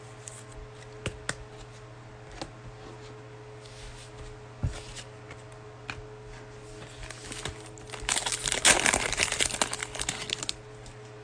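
Foil wrapper of a trading card pack crinkling and tearing as it is ripped open by hand, in a loud burst of about two seconds near the end. A few light ticks come before it.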